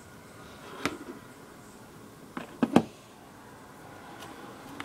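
Quiet room tone broken by a few short sharp taps: one about a second in and a quick cluster of three midway. This is handling noise from a small plastic toy figure and the phone being moved about.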